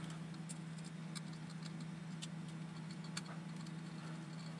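Faint, scattered light clicks of small screws and a hand tool being handled while fitting threadlocked parts to an RC car chassis, over a steady low hum.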